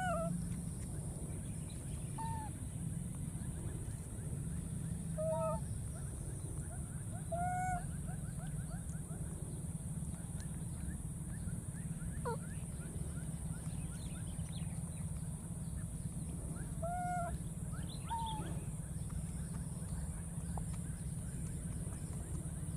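Baby macaque giving short, arched cooing calls every few seconds, over a steady low background noise.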